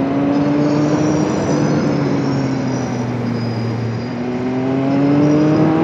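Motorcycle engine running at road speed under a steady rush of wind; the revs ease down gently, then climb steadily again from about four seconds in.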